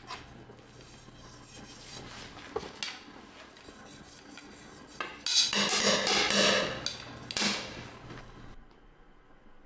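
Woodworking shop sounds: a few light knocks of tools on wood, then a loud rough rasping stretch about five seconds in lasting nearly two seconds, and a shorter one a moment later.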